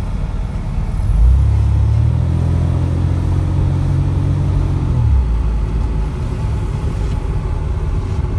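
Car driving, heard from inside the cabin: a steady low rumble of engine and road. A louder, deeper engine hum comes in about a second in and cuts off about five seconds in.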